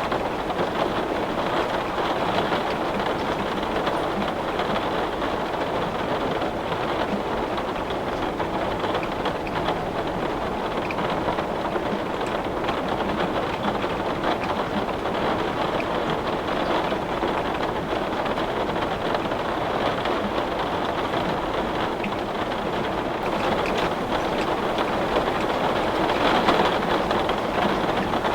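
Heavy rain beating steadily on window glass, a dense pattering hiss that swells slightly near the end.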